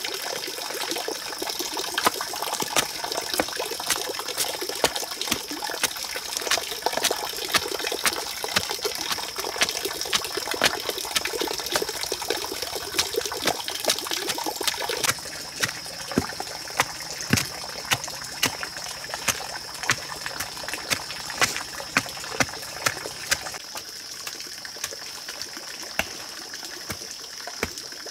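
Water trickling steadily, with a constant high-pitched whine over it and many sharp clicks and knocks that become sparser about halfway through.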